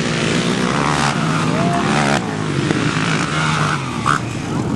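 ATV engines running and revving, more than one at once, their pitch rising and falling.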